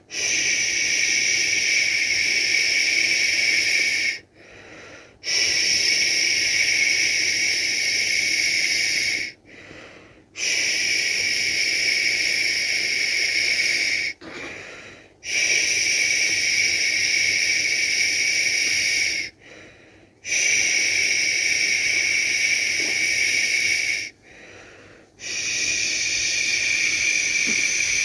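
A person making long, steady "shhh" shushing sounds to lull a baby to sleep. Each shush lasts about four seconds, with a pause of about a second between them for breath, about six times.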